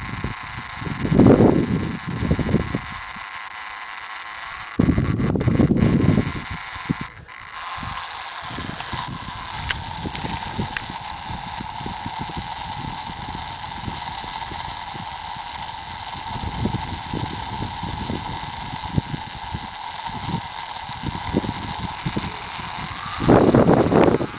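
Wind buffeting the microphone in uneven gusts, with loud surges near the start, a few seconds in and near the end, over a faint steady hum.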